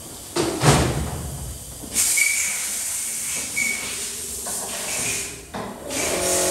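Hissing rush of water being sprayed and pushed across a mud-covered floor during flood cleanup. It surges in about half a second in and again at about two seconds, with a few knocks.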